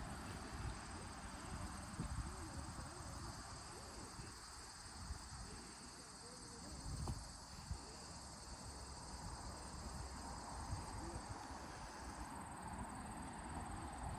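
Outdoor ambience of steady high-pitched insect buzzing, with an uneven low rumble on the microphone.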